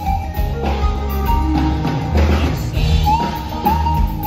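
Live soft-rock band playing: drum kit, bass and electric guitar under a high, gliding melodic lead line that repeats in short phrases near the end.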